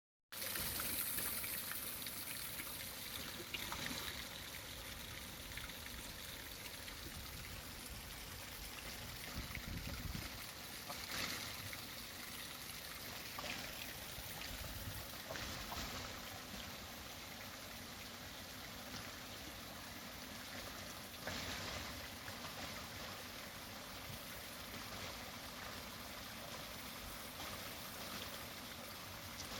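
Rain falling steadily, an even hiss with occasional louder spatters.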